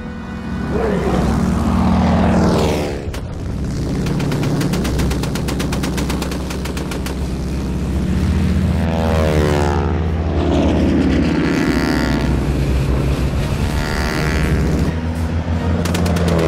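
Biplane radial engines and propellers running in a dogfight. The engine note drops in pitch as planes pass by, most clearly twice in the second half.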